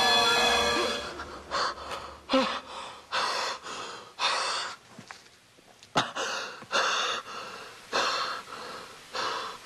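A man panting hard in fast, ragged gasps, roughly two breaths a second, with one sharp click in the middle.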